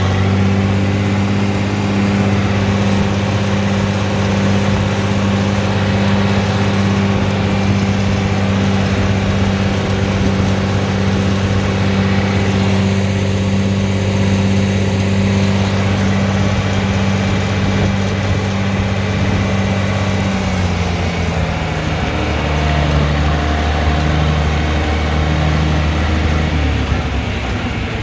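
John Deere 4030's 303 cubic-inch six-cylinder gasoline engine running steadily under the tractor. About twenty seconds in its speed drops and it settles at a lower, steady speed.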